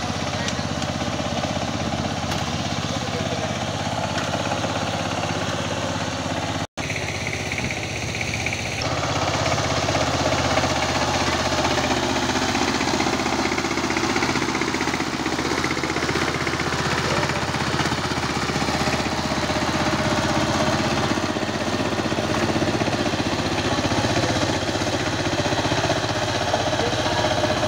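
Power tiller's single-cylinder diesel engine running steadily with a chugging knock. The sound cuts out for an instant about seven seconds in and is a little louder from about nine seconds on.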